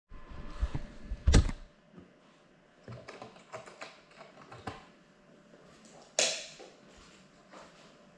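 Handling noise on the drone's GoPro: taps, knocks and clicks as it is held and set down on a table, with the loudest knocks about a second in and one sharp click near six seconds. The propeller motors are not running.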